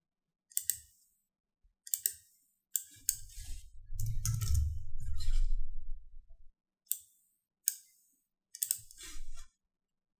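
Computer mouse and keyboard clicking in irregular bursts, with a duller low rumble between about three and six seconds in.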